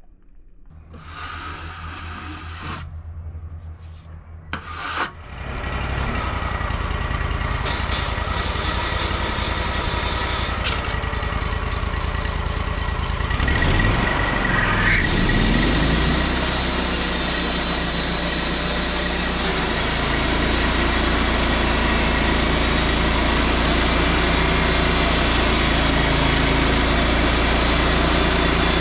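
Wood-Mizer LT35 portable band sawmill running: its engine hums steadily, then rises in pitch about halfway through and settles into a louder, steady run as the band blade saws through a pine log.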